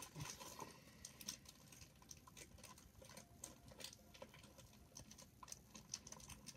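Near silence with faint, scattered light clicks and rustles of small items being handled by hand.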